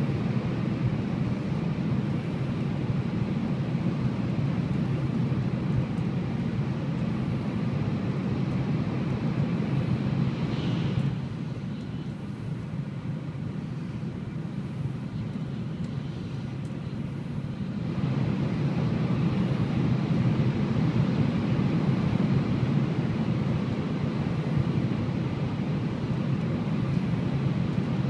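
Cabin noise of a Shinkansen bullet train running at about 280 km/h: a steady deep rumble with a rushing hiss. It is louder inside tunnels, drops about eleven seconds in as the train comes out into open air, and rises again about seven seconds later as it enters another tunnel.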